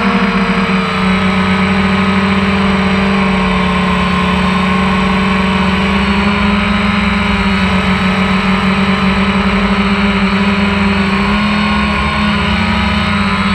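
DJI Phantom 1 quadcopter's four electric motors and propellers whirring steadily in flight, heard close up from the GoPro mounted on it. A steady hum whose pitch wavers slightly as the motors adjust.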